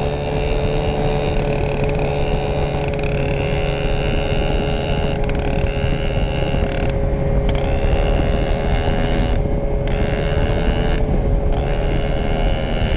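Vintage Scorpion snowmobile's two-stroke engine running at a steady speed as the sled travels over snow. Its engine note holds an even pitch, and a high whine above it drops out briefly a few times.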